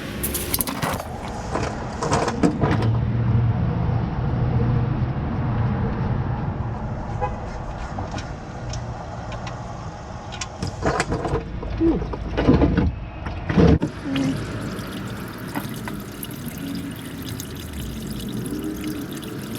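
Used motor oil pouring from the oil pan's drain hole into a drain pan in a steady stream, after the drain plug is loosened with a wrench. Several sharp knocks come in the second half.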